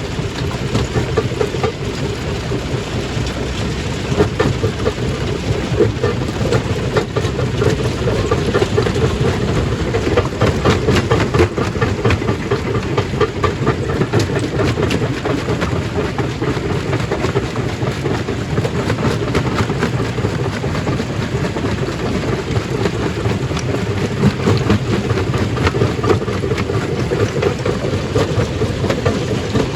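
Stone crushing machine running steadily, with a dense, continuous clatter of rock being broken up inside it.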